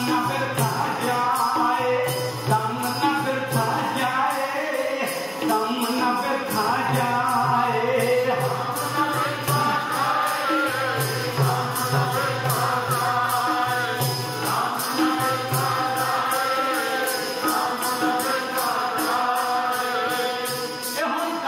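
Sikh kirtan: a male voice singing a devotional hymn in long melodic phrases over held instrumental notes and a steady rhythmic beat.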